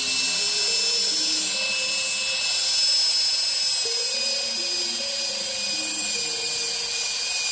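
Cordless drill spinning a wire wheel brush against an elm stool seat, a steady high motor whine over a scratchy hiss as the bristles scour the wood grain.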